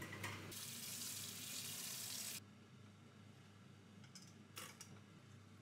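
Wet spinach sizzling in a frying pan, a steady hiss that cuts off suddenly a little over two seconds in. After it come a few faint clinks.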